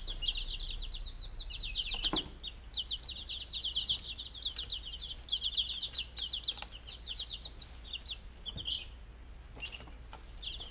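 A brood of young chicks peeping, many quick down-slurred peeps overlapping in a busy chorus that thins to scattered peeps about eight seconds in. A few faint taps are heard among them.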